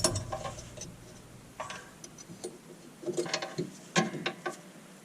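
Light, scattered metallic clicks and taps of a spring and metal parts being handled and fitted on a snowblower, in small clusters about three and four seconds in.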